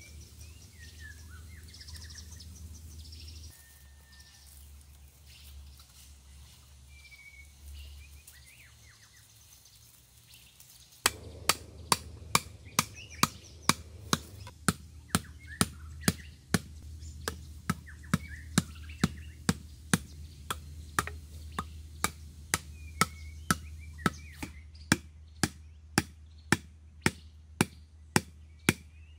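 Birds chirping; about eleven seconds in, a steady run of sharp knocks starts, about two a second, much louder than the birds, which carry on under them.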